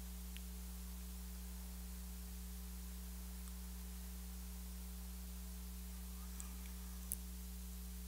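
Quiet room tone under a steady low electrical hum, with no speech; a single faint click about seven seconds in.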